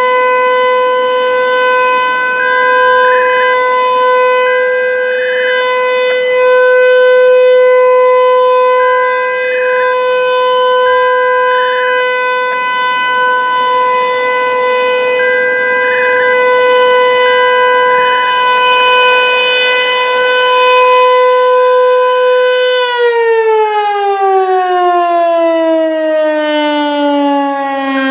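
ASC T-135 outdoor warning siren sounding a steady single tone for the Alert signal, its volume swelling and easing slightly. About three-quarters of the way through, the tone begins winding down, its pitch falling steadily as the siren's rotor slows at the end of the signal.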